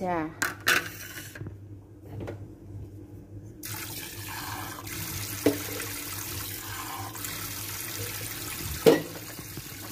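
Water from a kitchen tap starts running a few seconds in as a steady rush. Two sharp knocks sound over it, one around the middle and one near the end.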